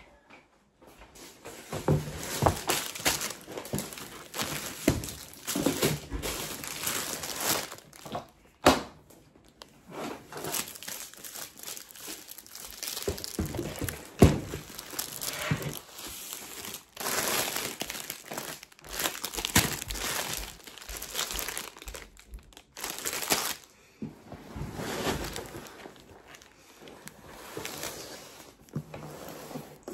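Plastic grocery packaging crinkling and rustling in irregular bursts as shopping is handled and unpacked from a plastic crate, with a couple of sharper knocks as items are set down.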